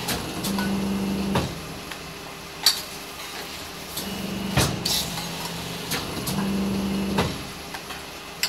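Hydraulic beading press working through stainless steel bowls: its steady hum grows louder during each pressing stroke and ends in a sharp metallic clack, three times, with lighter clinks of bowls being set in and taken out of the die between strokes.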